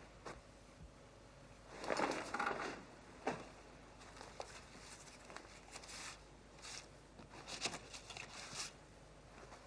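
Cardboard LP record sleeves being shuffled and flipped through by hand: soft slides, rustles and taps in a few short clusters.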